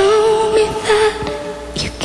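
A woman singing a ballad live, holding a long, slightly wavering note and then moving on to shorter notes, over sparse musical accompaniment.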